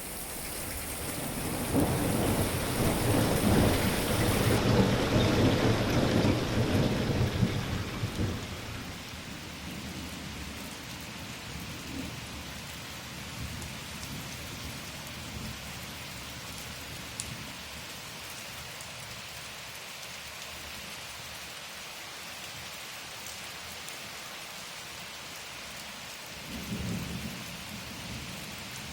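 Steady rain falling, with a long roll of thunder that swells in the first few seconds and dies away after about eight seconds; a shorter, fainter low rumble of thunder comes near the end.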